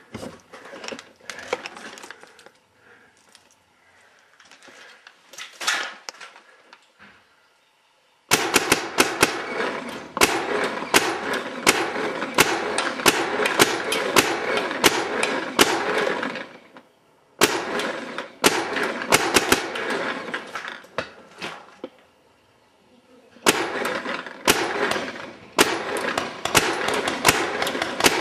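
Airsoft guns firing in long rapid bursts, a dense clatter of shots. Faint scattered clicks come first, the loud firing starts suddenly about eight seconds in, and it breaks off twice before starting again.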